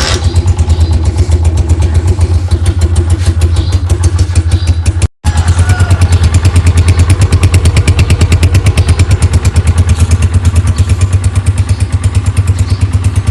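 125 cc motorcycle engine just started and idling with a loud, even, rapid exhaust beat. The sound cuts out for a split second about five seconds in, then carries on the same.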